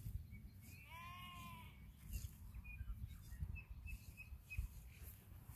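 A sheep bleats once, a single call about a second long that rises and falls in pitch, about a second in. A few short, high bird chirps follow.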